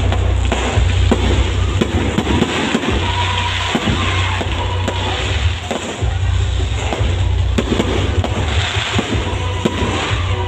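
Aerial fireworks going off in a rapid string of sharp pops and bangs, with music playing underneath.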